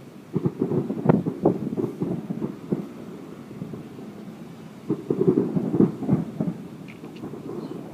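Fireworks exploding: a volley of bangs and crackle in the first three seconds, then another volley about five seconds in.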